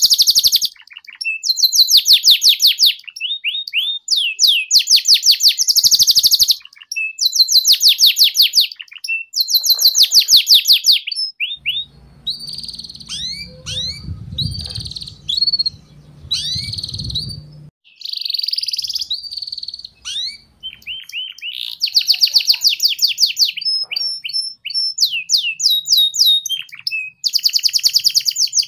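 Domestic canary singing: fast trills of repeated down-slurred notes in bursts of about a second, separated by short gaps and single chirps, with a softer, more broken stretch of chirps in the middle.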